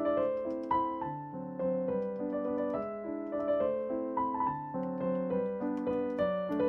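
Background piano music: a light tune of short notes following one another without a break.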